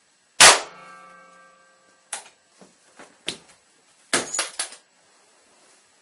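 A sharp metallic clang about half a second in that rings on for over a second, followed by several shorter knocks and a quick clatter of hits near the end.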